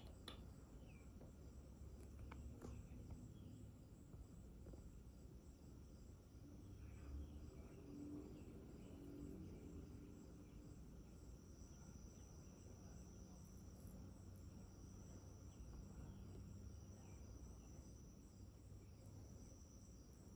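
Near silence, with faint steady high-pitched insects droning in the background, growing slightly stronger a little over halfway through.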